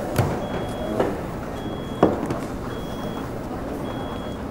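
Four evenly spaced high electronic beeps, each about half a second long and about one a second apart, over a steady background rumble. A few sharp knocks come in the first two seconds; the one about two seconds in is the loudest.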